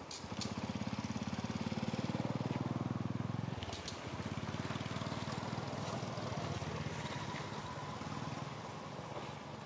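A small engine running steadily, with a rapid even pulsing. It is louder for the first three and a half seconds, then drops to a lower level for the rest.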